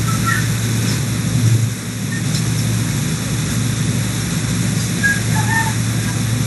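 Steady background noise: a continuous low hum with an even hiss underneath, and a few faint short high tones.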